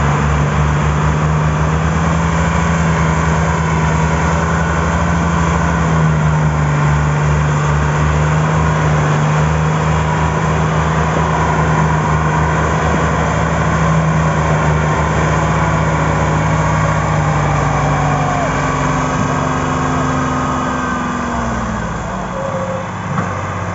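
Tractor diesel engines running hard at high revs under heavy load, pulling a loaded sugarcane trolley that is stuck. The steady engine note drops and eases off about twenty seconds in.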